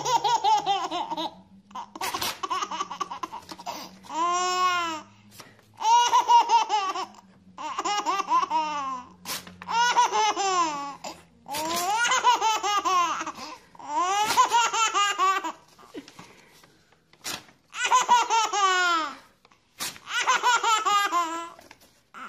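Baby laughing hard in repeated bouts, about ten bursts of laughter roughly every two seconds, each one falling in pitch.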